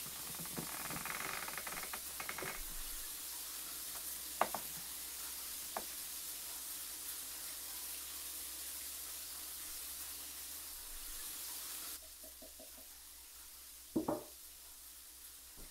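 A steady hiss with a few sharp clicks. The hiss drops away suddenly and is followed, near the end, by two quick knocks.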